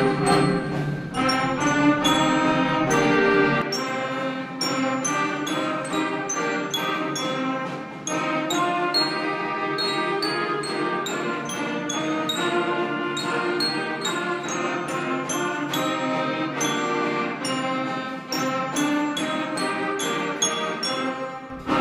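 Student concert band playing a piece: clarinets, flutes, saxophones, trumpets and trombones together, with regular percussion strikes marking the beat. The low bass drops out about three and a half seconds in.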